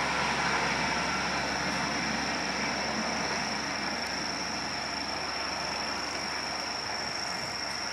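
Passenger train coaches rolling away on the rails after passing at speed, a steady wheel-on-rail rumble that fades slowly. A steady high-pitched tone runs over it.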